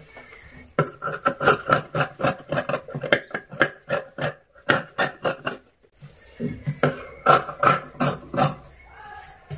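Scissors snipping through a sleeve piece of fabric and its lining cut together, a rapid run of snips at about four a second, a short pause about six seconds in, then a second run.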